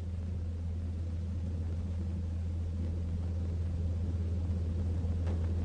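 Steady low electrical hum with faint hiss, the background noise of an old optical film soundtrack, with a faint click about five seconds in.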